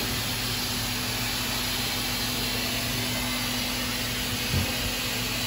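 Steady hum and hiss of running factory machinery, like a blower or fan, with a soft low bump about four and a half seconds in.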